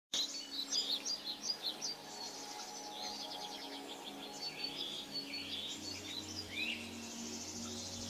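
A chorus of small birds chirping and trilling, busiest in the first two seconds, over faint steady background tones.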